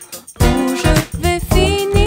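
Background music with a melody over a steady beat; the music dips briefly about a quarter second in, then comes back at full level.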